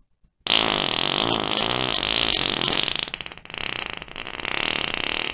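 A long, continuous fart: a rapid fluttering buzz that starts about half a second in, dips briefly midway, then carries on.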